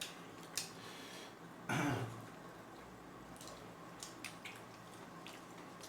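A person eating: faint chewing and wet mouth clicks, with one short, louder throat sound about two seconds in.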